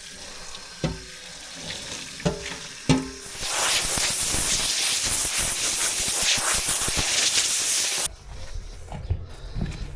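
A few light metal clinks, then an aerosol degreaser sprayed in one long, steady hiss of about five seconds that cuts off sharply.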